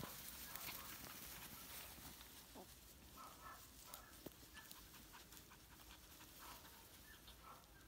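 Faint, short squeaks and yips from Havanese puppies play-fighting, coming in small clusters from about three seconds in.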